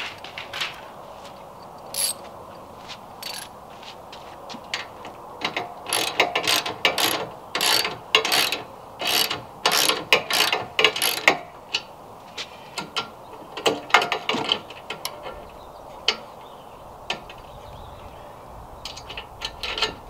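Ratchet wrench clicking in quick runs as the nuts on the ladder mount's carriage bolts are tightened, with short pauses between runs; the longest run comes in the middle.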